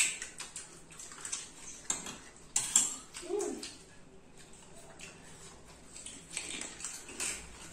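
Spoons clinking and scraping in a steel bowl of filling and against plates in a run of short, irregular clicks, with small cracks as hollow puri shells are broken open and wet sounds as the filled puris are dipped into the spiced water.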